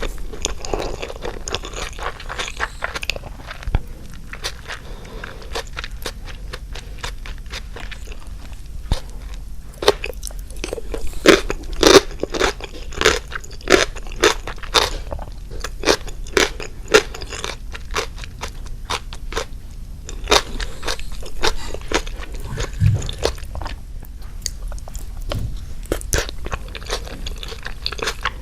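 Close-miked eating: chewing with a run of crisp crunches, as of Japanese cucumber pickles being bitten and chewed, thickest from about ten to seventeen seconds in and again later.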